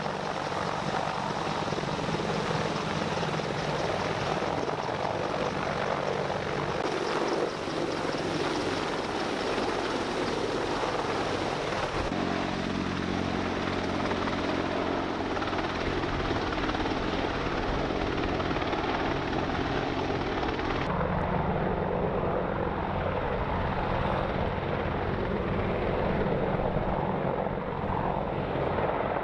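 Several AH-64 Apache attack helicopters flying past low, the steady beating drone of their four-blade main rotors. The sound changes abruptly a few times as the shot cuts between passes.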